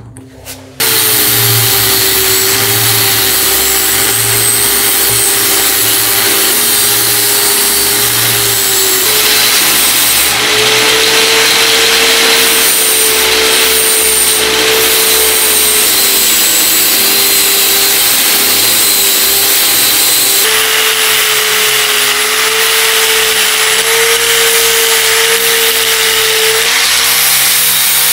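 Electric power tool running continuously under load. Its motor tone wavers slightly as the tool is worked, with a loud rushing noise over it. It switches on abruptly about a second in.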